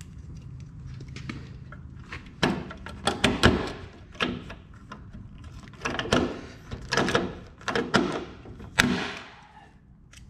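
Hand pop-rivet gun setting a 3/16-inch aluminum rivet: a run of sharp, irregular clacks and snaps as the handles are squeezed again and again, the loudest snaps about three and a half seconds in and near the end.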